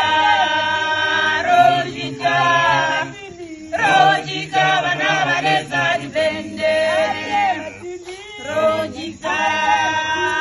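A group of lodge staff singing together unaccompanied, as a choir in harmony, in phrases with short breaks between them.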